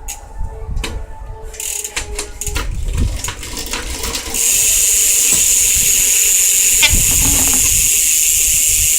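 Eastern bidirectional rear hub of a BMX bike freewheeling: a few separate clicks at first, then about four seconds in a loud, steady, high-pitched buzz as the wheel spins fast and the pawls ratchet.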